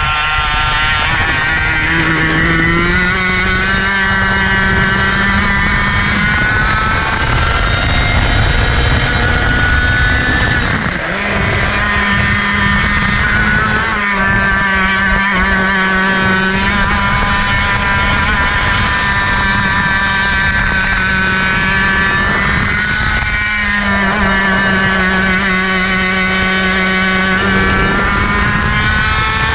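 IAME KA100 single-cylinder two-stroke kart engine heard from onboard at racing speed. It revs up hard along the straights, and its pitch drops off several times as the driver lifts for corners.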